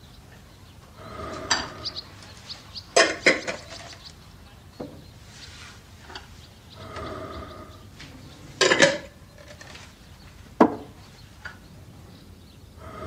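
Glass jars and small items clinking and knocking as they are handled and set down on a wooden table: a handful of separate sharp knocks, the loudest about three and nine seconds in. In the quieter stretches there are two faint, drawn-out sounds of steady pitch.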